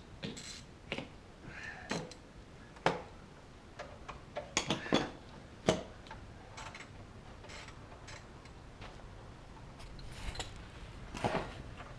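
Irregular sharp clicks and metallic clinks of hand tools being handled, such as a socket wrench during an oil change, with a few louder clinks around the middle and a short cluster near the end.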